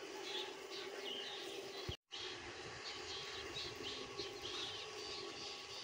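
Small birds chirping many times in quick short notes over a faint, steady outdoor background hum, with a momentary break about two seconds in.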